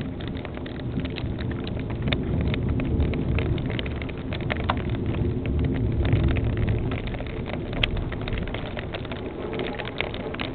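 Heavy rain pelting down, with many sharp ticks of drops striking close by over a steady low rumble.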